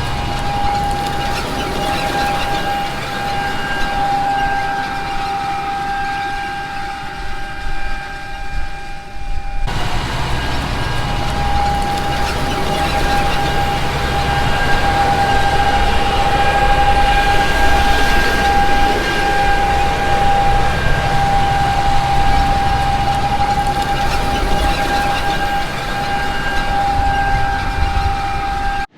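Heavy farm machinery running steadily: a deep engine rumble under a constant high whine. The sound changes abruptly about ten seconds in, and the whine carries on after the change.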